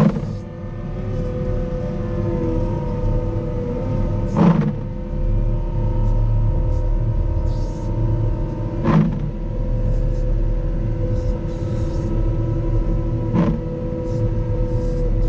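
Caterpillar 926M wheel loader's diesel engine running steadily under load while pushing a snow plow, with a deep rumble. A sharp hit sounds about every four and a half seconds.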